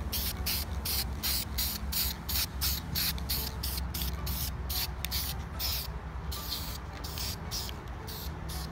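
Aerosol can of spray-on vinyl coating sprayed in quick short bursts, about three or four hisses a second, over a steady low hum.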